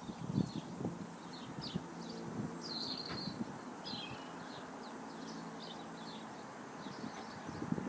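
Small birds chirping over and over, with a few soft handling knocks at the start and near the end.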